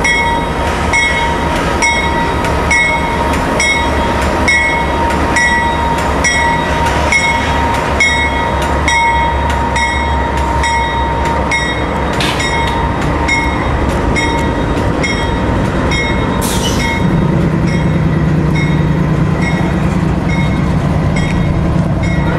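GE AC44-9CW diesel locomotives, each with a V16 engine, passing close at low speed with their engines running, over an evenly repeated ringing strike about twice a second, typical of the locomotive bell rung through a station. A deeper engine note joins about two-thirds of the way through as the next unit comes by.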